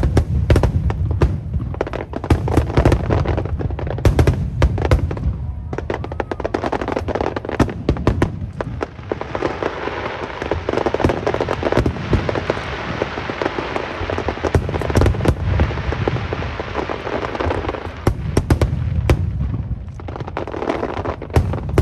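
Aerial fireworks bursting in rapid succession over a low rumble, with a dense stretch of crackling shells from about nine to eighteen seconds in.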